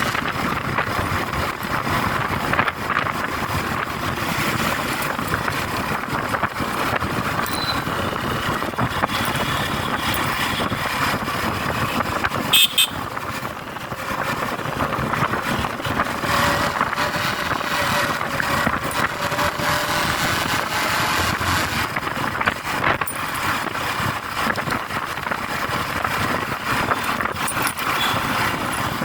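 Motorcycle ride through road traffic: steady engine, wind and traffic noise, with a brief horn toot about halfway.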